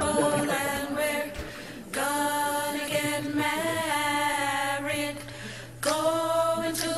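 Vocal music: a voice or voices singing long held notes in phrases a few seconds long, with two short breaks between phrases.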